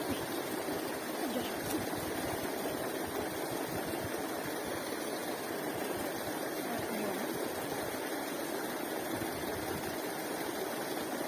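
Steady rushing of running water, an even wash of sound with no breaks.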